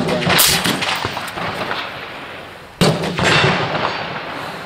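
Two shots from an IWI Tavor bullpup rifle, one right at the start and another almost three seconds later, each followed by a long echo that dies away.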